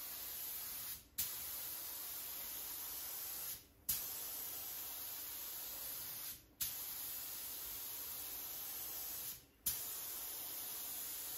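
Gravity-feed spray gun hissing steadily as orange base colour is sprayed onto a car bonnet. The hiss breaks off briefly four times, about every three seconds, as the trigger is released between passes, and each restart begins with a short puff.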